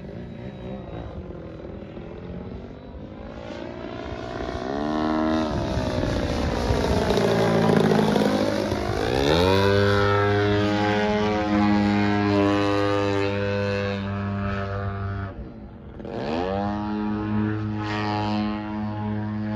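Radio-controlled model airplane's motor and propeller droning overhead. The pitch swoops up and down through the first half, then holds steady. Near the end it dips away briefly and rises back up.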